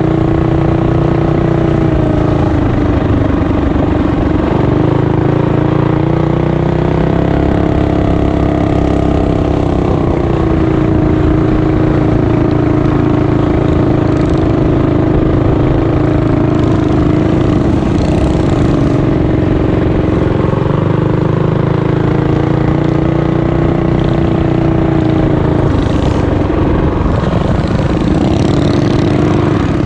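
Mini bike engine running continuously under riding load, its pitch rising and falling as the throttle is opened and eased. A few short bursts of hiss come and go in the second half.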